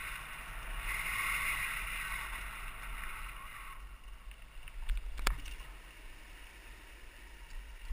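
Mountain bike riding fast down a dirt trail, heard from a helmet-mounted camera: a steady rush of wind on the microphone and tyre rumble, easing after about four seconds. A little past five seconds in there is a sharp knock as the bike jolts.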